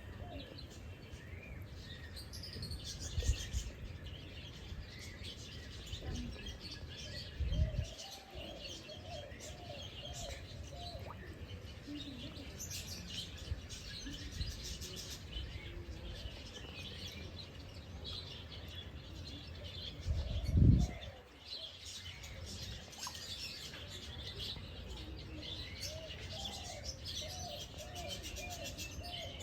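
Several wild birds chirping and calling at once, with short high chirps throughout. A few brief low thumps break in, the loudest about twenty seconds in.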